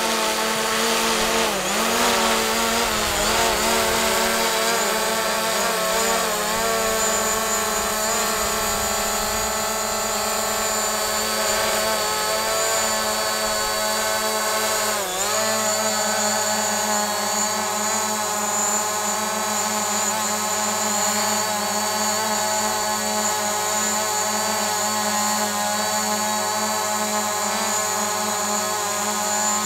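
Small quadcopter drone's propellers whining steadily as it hovers and lowers in to land. The pitch dips and wavers briefly about two seconds in and again about halfway through as it adjusts its position.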